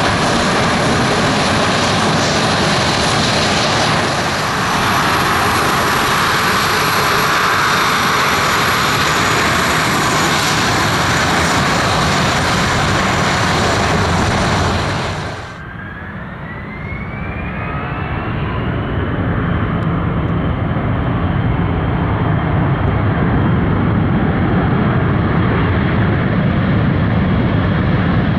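Boeing 737-500's CFM56 jet engines running loud and steady. About fifteen seconds in the sound cuts to an Airbus A321's jet engines spooling up, a whine rising in pitch over a few seconds, then running steadily at power.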